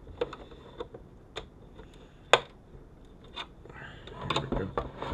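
Sharp clicks and taps of a screwdriver and small screws against the sheet-metal case of a vehicle video entertainment unit as it is worked on by hand, about one a second, with one louder click a little past two seconds in and a quick cluster near the end.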